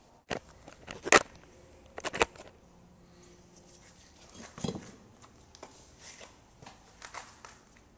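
Handling noise while a just-landed largemouth bass is held: a few sharp knocks and rustles, the loudest about a second in, with quiet stretches between.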